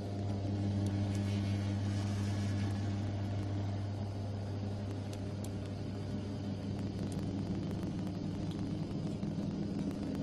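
SkyStair vertical wheelchair platform lift running, its drive motor humming steadily as the platform carries a standing person upward.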